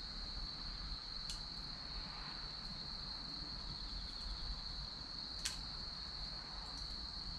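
Chestnut and cherry firewood burning in a bonfire, popping sharply twice, about a second in and again after five seconds, over a steady high-pitched trill of crickets.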